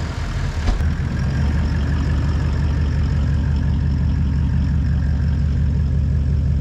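A vehicle engine idling steadily, with a single sharp click a little under a second in.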